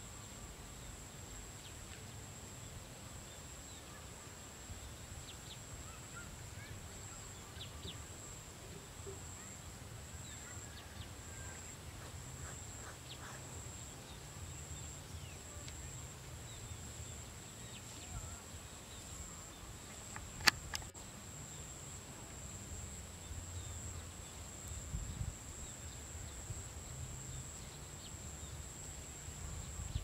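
Open-field ambience: a steady high-pitched insect drone with scattered faint bird chirps over a low wind rumble. One sharp click stands out about two-thirds of the way through.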